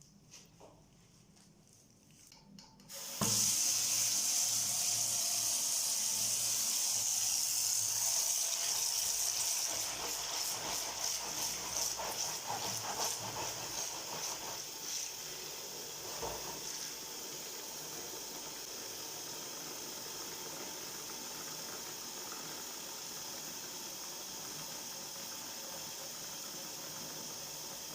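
Water from a tap starts suddenly about three seconds in and runs into a basin: splashy and uneven at first, then a steady rush for the rest.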